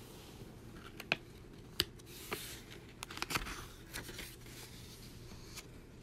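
A page of a Little Golden Book picture book being turned by hand: soft paper rustling with a few light clicks and ticks, busiest between about one and three and a half seconds in.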